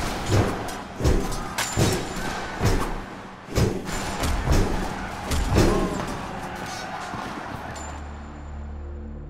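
Staged film fight: a run of heavy thumps of blows about once a second, with men's shouts, over dramatic music. The blows stop about six seconds in, leaving a low, steady music drone.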